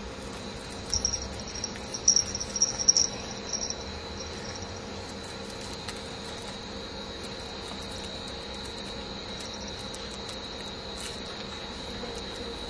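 A small bell on a cat's collar jingling in quick clusters of shakes for a few seconds as the cat rolls and bats at a feather toy, then a few faint tinkles later. A steady hiss and a thin, high, steady whine run underneath.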